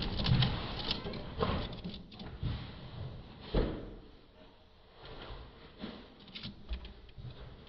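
A few irregular light knocks and clicks, the loudest about three and a half seconds in.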